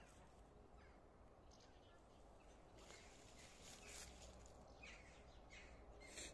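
Near silence: faint outdoor ambience with a few soft rustles of hedge foliage around three to four seconds in.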